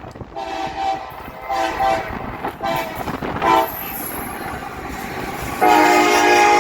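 Locomotive multi-chime air horn played as a horn show: about four short blasts, then a louder long blast starting near the end.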